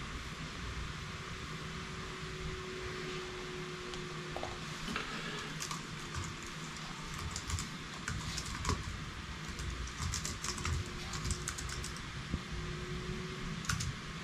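Typing on a computer keyboard: irregular runs of key clicks starting about five seconds in, over a steady background hiss.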